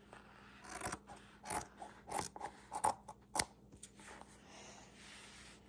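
Scissors snipping through cotton quilt batting, several cuts about half a second apart, stopping about three and a half seconds in.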